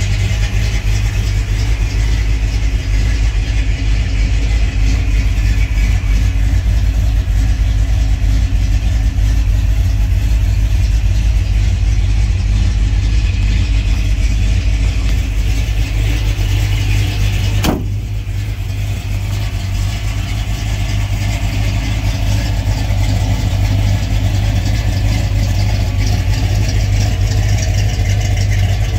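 The 1984 Ford F150's 302 small-block V8 idling steadily, with a deep, even low hum. One sharp click about two-thirds of the way through.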